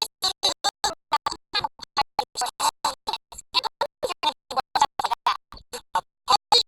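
Rapidly chopped, stuttering audio from an edited video clip: short bursts about five or six a second, each broken off by a gap of silence.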